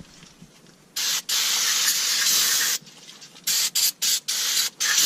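Aerosol brake cleaner sprayed onto a brake caliper to flush out brake dust: one long hiss of nearly two seconds starting about a second in, then several short, quick bursts.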